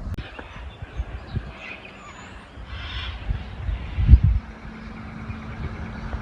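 Outdoor ambience: uneven low rumbling, loudest about four seconds in, with faint bird calls.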